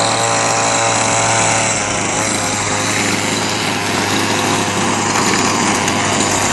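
Radio-controlled car's motor running steadily under load as it tows a go-kart with a child aboard, an even buzzing engine note with little change in pitch.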